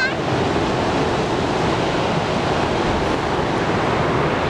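Ocean surf breaking steadily on a beach, mixed with wind on the microphone.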